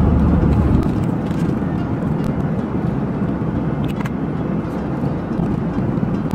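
Airliner cabin noise: the steady rumble of the aircraft heard from inside the cabin. The rumble is heavier for about the first second and then settles to a lighter, even level.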